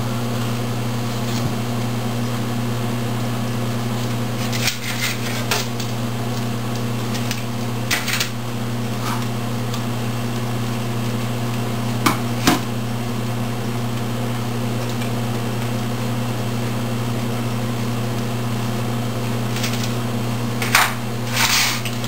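Steady low mechanical hum, with a few scattered light clicks and knocks as plastic candy trays and a plastic bowl are handled on a countertop, two sharp ones about twelve seconds in.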